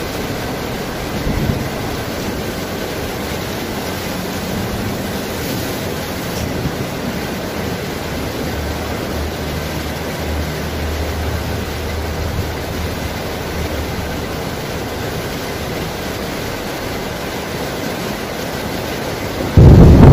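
Steady rushing of a fast, rocky mountain stream. Just before the end, a much louder rumble of thunder with heavy rain cuts in abruptly.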